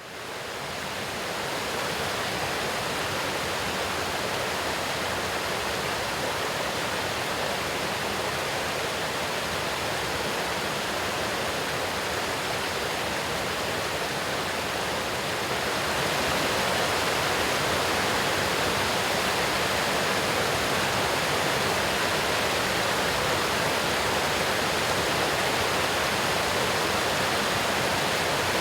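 Small waterfall of spring water rushing and splashing steadily. It fades in at the start and gets a little louder about halfway through.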